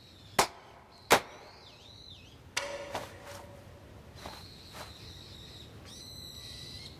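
Two sharp hand claps about three-quarters of a second apart, the double clap of Shinto shrine prayer. A ringing knock follows about two and a half seconds in, and high chirping calls run through the rest.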